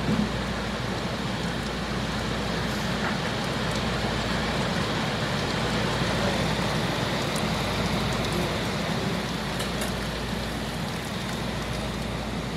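Heavy thunderstorm rain pouring down in a steady hiss, easing slightly near the end.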